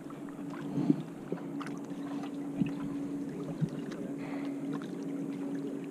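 A steady low engine hum, with a few sharp clicks and taps over it, the loudest about a second in.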